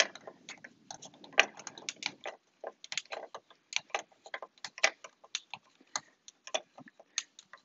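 Irregular plastic clicking, a few clicks a second, as the tensioning screw of a Thule Evo Clamp roof-rack foot is turned by hand with its small tool to tighten the clamp.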